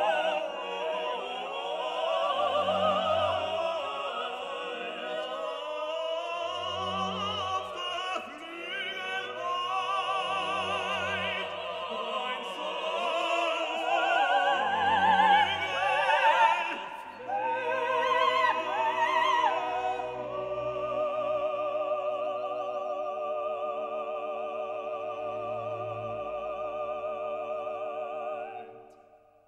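Operatic singing with strong vibrato over an orchestra, with a low note recurring about every four seconds. About two-thirds of the way through the voice stops and the orchestra holds long chords, which fade out at the very end.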